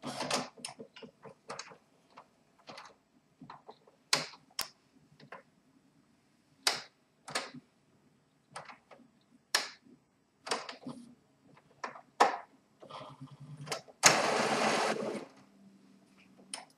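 Epson WorkForce WF-3540 inkjet printer mechanism running its first-time ink-charging initialization: irregular clicks and clacks as the print-head carriage and its gears shift about, then a loud whirr lasting about a second near the end.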